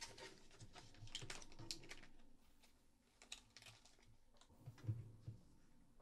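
Faint rustling and light clicking of small plastic resealable parts bags being handled and stacked on a tabletop, with a soft knock about five seconds in.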